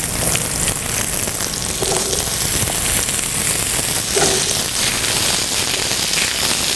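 Pattypan squash sizzling in hot grapeseed oil in a sauté pan over medium-high heat, a steady frying hiss.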